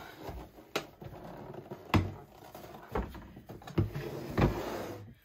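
Fabric dust cover rustling as it is pulled off an AccuQuilt GO! Big electric fabric cutter, with about five knocks and thumps as the machine is tipped and set back down on the table; the loudest come about two seconds in and near the end.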